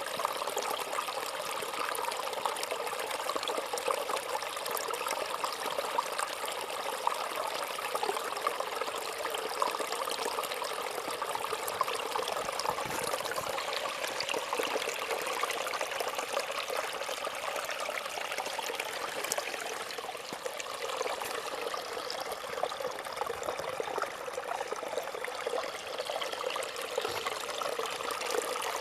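Small brook babbling and trickling steadily over stones.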